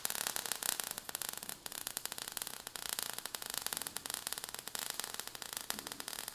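Crackling hiss made of dense, rapid clicks, a fizzing sparks-and-fire sound effect.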